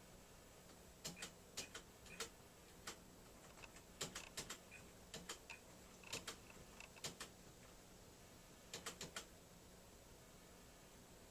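Keys being pressed on the keyboard of a StarWriter Pro 5000 word-processing typewriter: sharp, separate clicks in small irregular clusters with pauses between, stopping about two seconds before the end.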